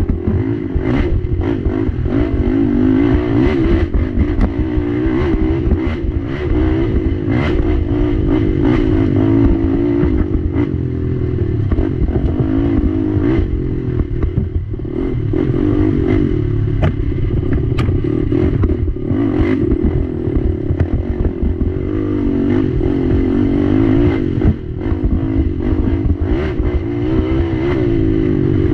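Race ATV engine running hard, its pitch rising and falling constantly as the rider works the throttle along a rough dirt trail. Frequent knocks and rattles come from the quad going over roots and bumps.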